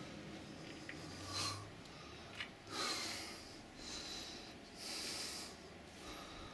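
A person breathing audibly close to the microphone, with a short hissing breath about once a second.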